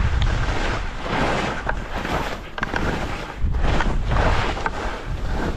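Wind rushing over the microphone during a downhill ski run, with the hiss of skis sliding and turning on snow, rising and falling in swells.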